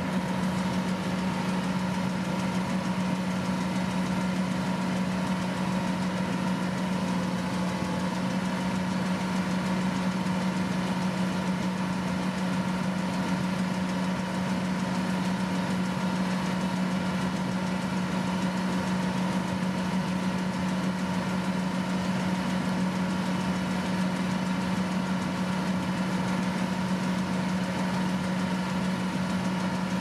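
Kubota DC-108X combine harvester's diesel engine running at a constant speed while the machine cuts rice, a steady drone with an even low hum that doesn't change.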